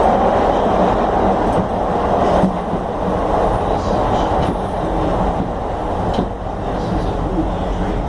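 CTA Blue Line train running on the track: a steady rumble of wheels and motors with a few sharp clicks.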